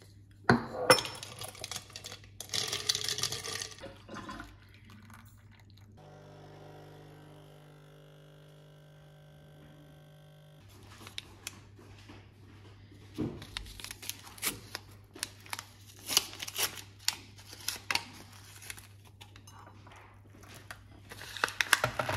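Coffee capsules clattering in a glass jar as a hand rummages through them. After that a capsule coffee machine's pump buzzes steadily for about four seconds and stops suddenly. Light clicks and rustling of a paper tea sachet follow, and water is poured from an electric kettle near the end.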